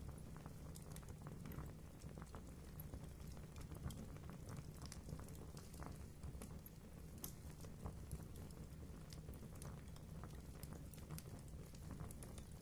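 Fire crackling in a fireplace: irregular sharp snaps and pops, several a second, over a low steady rumble.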